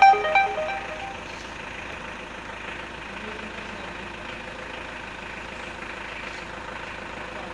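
A run of electronic melody notes, like a ringtone or musical horn, fades out within the first second. Then a steady mechanical hum continues unchanged.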